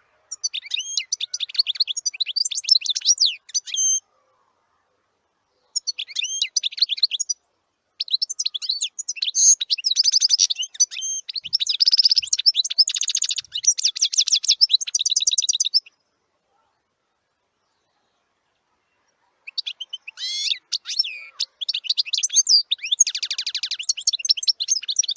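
Small songbirds chirping and twittering in high-pitched bursts, with rapid trills in the longer stretches, broken twice by several seconds of dead silence.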